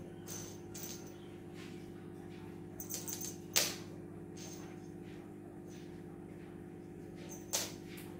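Scattered sharp taps and clicks from cats playing with a feather wand toy on a wooden floor. The loudest come about three and a half seconds in and near the end, over a steady low hum.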